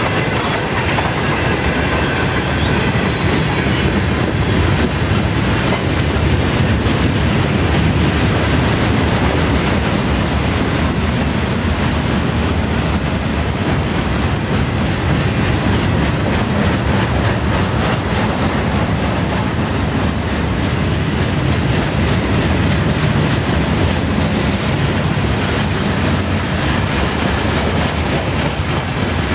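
Freight train of loaded tank cars and boxcars rolling steadily past, steel wheels rumbling and clacking on the rails.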